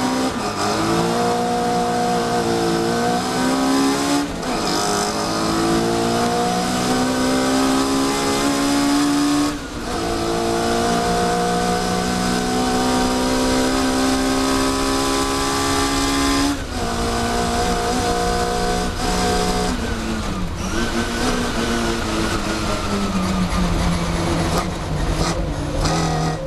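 Mini Cooper S race car's four-cylinder engine heard from the cockpit, revving up through the gears under hard acceleration, with upshifts about 4, 10 and 17 seconds in. Near the end the pitch drops in steps as the car brakes and shifts down for a corner.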